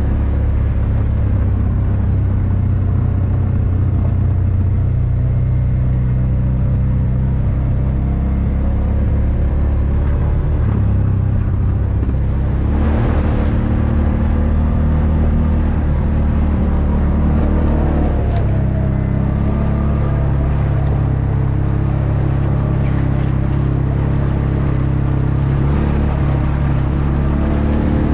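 Off-road vehicle engine running steadily while driving along a dirt trail, its pitch stepping up and down a few times with the throttle. A brief rushing noise comes about halfway through.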